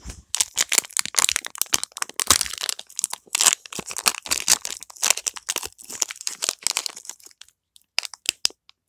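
Foil Pokémon booster pack wrapper crinkling and crackling as it is handled and opened, thinning to a few scattered crackles near the end.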